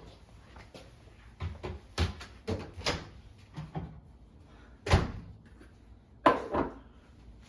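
A door being handled: a run of light knocks and clunks, then a loud bang about five seconds in and a loud double bang about a second later.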